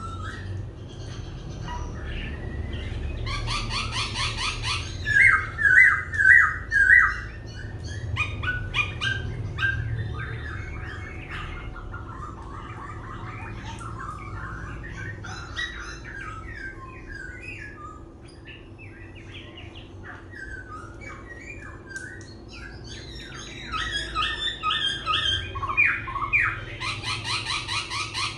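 Laughingthrush singing a long, varied song that keeps switching from one phrase to another. Loud runs of quick repeated notes come about five seconds in and again near the end.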